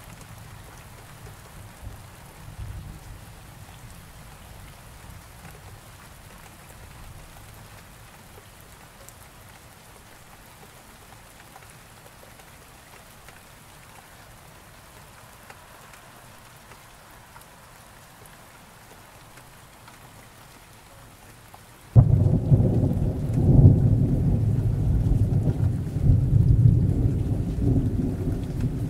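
Steady rain falling, then about three-quarters of the way through a sudden loud thunderclap that rolls on into a long, deep rumble of thunder over the rain.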